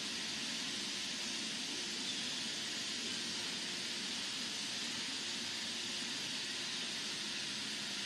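Steady hissing background noise with a faint low hum underneath, holding one level throughout.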